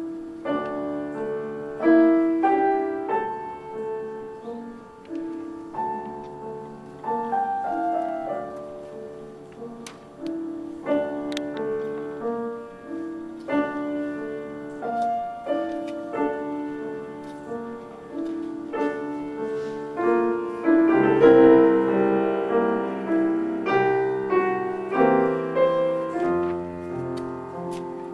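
Young Chang grand piano played four hands in a duet, a steady run of struck notes in the middle register. About two-thirds of the way through the playing grows fuller and louder, and deep bass notes come in near the end.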